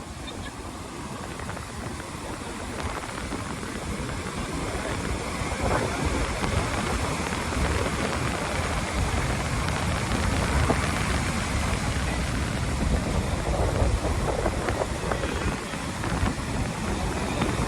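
Strong cyclone wind buffeting the microphone in gusts, over a steady rushing of wind and surf.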